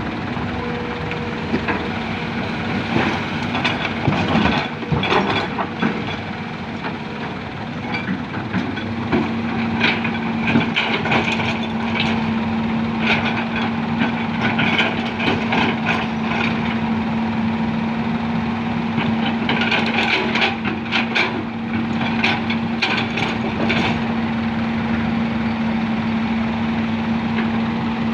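Heavy diesel engine of working quarry machinery running steadily with a constant hum. Over it come three stretches of clattering and scraping, about three to six seconds in, from about ten to sixteen seconds, and from about twenty to twenty-four seconds, typical of an excavator bucket digging and dumping soft rock.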